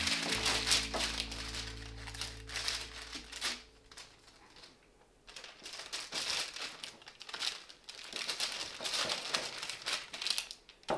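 Parchment paper crinkling and rustling on a sheet pan as a metal bench scraper chops through soft dough, in repeated bursts with a short lull near the middle. Background music fades out in the first few seconds.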